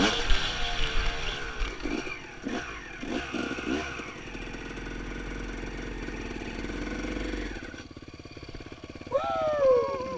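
Dirt bike engine riding under throttle, its pitch rising in a few quick surges in the first few seconds, running steadily, then dropping off about eight seconds in as the bike slows. Near the end come two or three quick throttle blips, each rising and falling in pitch.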